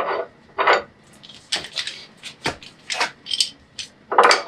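Steel shackle clinking and tapping against the winch hook and the steel bumper mount as it is fitted: a string of short, irregular metallic clinks.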